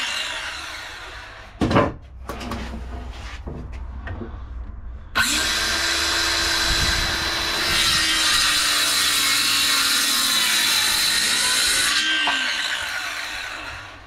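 Ryobi cordless circular saw. At the start its blade winds down from a cut with a falling whine, then there is a sharp knock and a few light clicks. About five seconds in the saw starts suddenly and cuts through a softwood batten with a steady whine for about seven seconds, then winds down again, its pitch falling.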